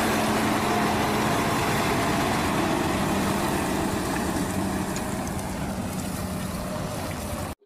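Boom truck carrying a National Crane boom driving off: its engine running with a steady low hum over broad road noise, slowly fading as the truck pulls away.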